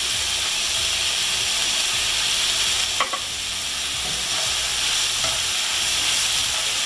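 Diced vegetables and raisins sizzling in hot oil in a pan while being stir-fried with a spatula, a steady frying hiss with one brief knock about three seconds in.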